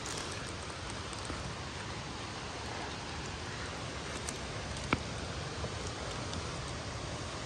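Steady rushing outdoor noise under a hiker's footsteps on dry forest litter and deadfall, with one sharp snap like a stick breaking about five seconds in.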